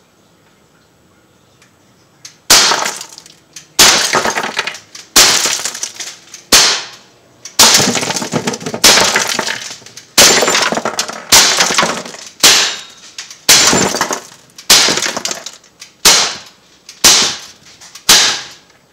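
Umarex Glock 19 Gen 3 non-blowback CO2 BB pistol firing a rapid string of about fourteen shots, roughly one a second, starting a couple of seconds in. Each sharp pop comes with the .177 steel BB striking the styrofoam blocks and the ceramic jar behind them, which shatters into pieces.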